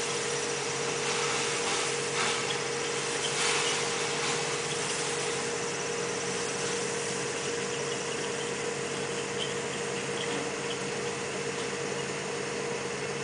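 Machinery running steadily: a constant hum with a hiss over it, and a few faint knocks about two to four seconds in.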